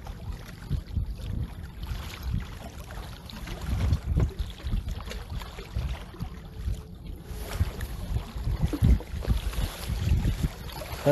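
Wind buffeting the microphone in irregular low rumbling gusts.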